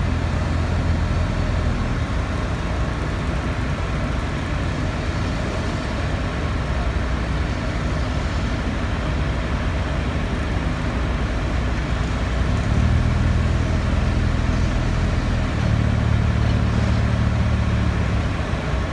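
Lorry diesel engine running steadily to drive a Hiab crane's hydraulics, its drone growing louder in two steps about two-thirds of the way through and again a few seconds later as the crane takes up and raises the load, then easing just before the end.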